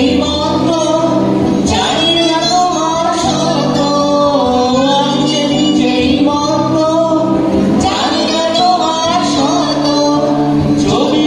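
Live band playing a song: a man and a woman singing into microphones over electric guitar and drum kit.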